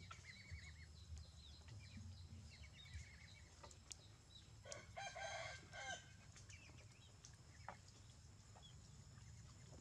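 Chickens clucking faintly in short runs, and a rooster crowing once about five seconds in.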